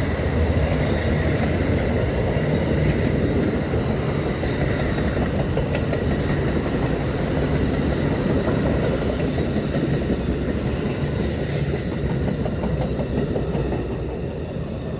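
Amtrak passenger train rolling past, a steady rumble of steel wheels clicking over the rail joints; the sound eases off slightly near the end.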